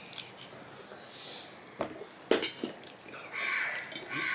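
Stainless-steel plates clinking and knocking a few times as a piece of fried hilsa fish is tipped from one plate onto another plate of rice.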